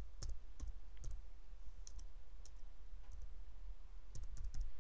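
Computer keyboard and mouse clicks, irregular and scattered, with a quick run of several clicks near the end, over a steady low hum.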